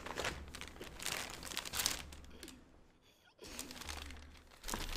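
Plastic packaging bags crinkling and rustling as they are handled and pulled open, easing off briefly about three seconds in.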